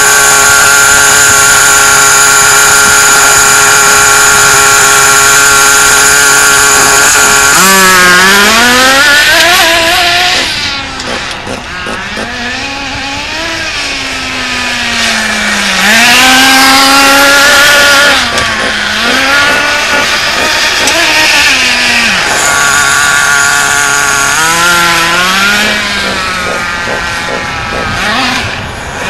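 Small two-stroke nitro glow engine of an RC buggy. It holds a steady high-pitched whine for about seven seconds, then revs up and down again and again as the buggy is driven.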